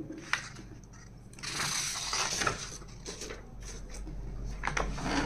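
Handling noise: a plastic breadboard and the sheet of paper under it being shifted across a desk, rustling and scraping, with a light click just after the start and a few more near the end.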